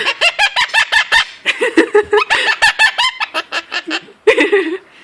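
Quaker parrot chattering: a fast run of short, harsh pitched calls, with lower hoarse notes about two seconds in and again near the end.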